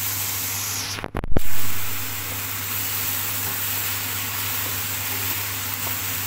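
Carrots, peas and bell peppers sizzling as they fry in a steel pan: a steady hiss over a low hum. About a second in, the sound cuts out briefly and there is a loud low thump.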